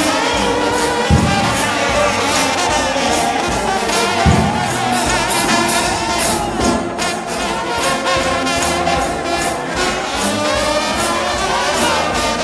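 Trombone-led shout band playing a gospel tune: many trombones and other brass in harmony over drums and cymbals, with two heavy drum hits about one and four seconds in.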